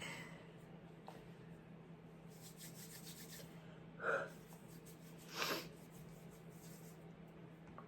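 A sick person breathing between sneezes: two short breathy sounds about a second and a half apart, the second one hissier.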